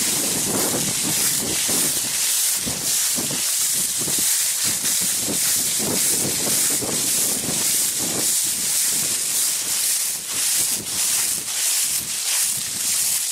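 Wind buffeting a handheld camera's microphone over a steady hiss, while feet swish through long grass and dry fallen leaves in a steady walking rhythm.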